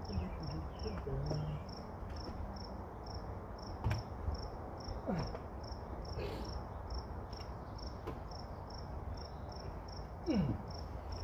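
A cricket chirping steadily, about three short high chirps a second, over a low background rumble. A click about four seconds in, and brief falling creaks of handling near the middle and end.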